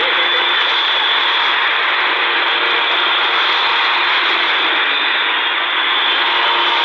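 Steady shortwave static hiss from a C.Crane CC Skywave portable radio tuned to 5800 kHz, with faint tones from a weak broadcast signal under the noise.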